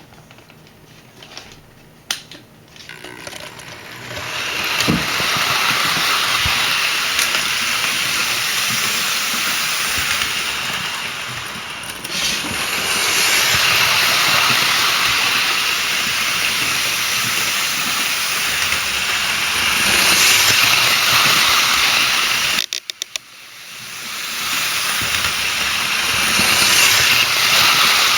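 Hornby Tornado OO-gauge model steam locomotive and Pullman coaches running around the layout track, a steady hissing rattle of wheels and motor. It starts a few seconds in and swells and fades as the train comes round, with a sudden brief drop near the end.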